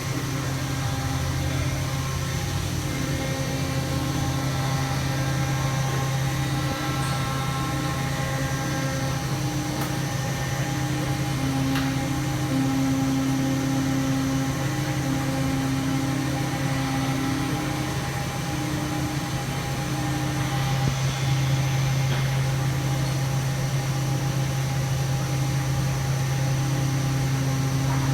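Hurco VM10 CNC vertical machining center running under power: a steady electrical hum with a constant higher whine, and whining tones that switch on and off and step between two pitches. A couple of light clicks come about ten and twelve seconds in.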